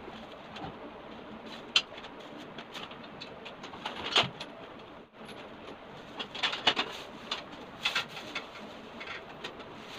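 Plastic wrapping and a plastic bag crinkling and rustling as they are handled and pulled off a metal stand, in irregular crackles, busiest about six to eight seconds in.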